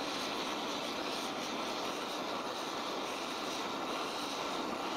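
Gas blowtorch burning with a steady, even roar as its flame heats a Meehanite cast iron piston ring toward red heat, the ring's gap held open by a wedge so it sets to shape.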